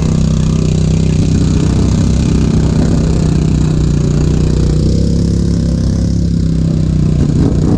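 ATV engine running loudly at a fairly steady speed.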